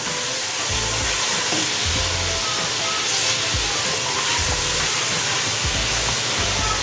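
Ginger-garlic paste sizzling in hot oil in a metal pot while being stirred and browned with a spatula: a steady frying hiss.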